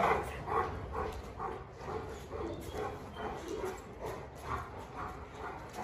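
Large black Presa Canario panting with its mouth open, soft short breaths about twice a second.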